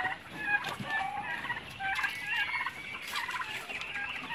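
A flock of domestic turkeys gobbling, many short overlapping calls.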